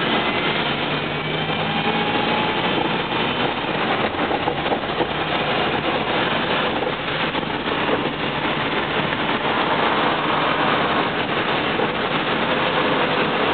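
Cabin sound of a 1975 BMW 2002 converted to electric drive, under way: a whine from its NetGain Warp9 DC motor and drivetrain rises in pitch near the start, over a steady rush of road and wind noise. There is no engine note, only the electric drive and the road.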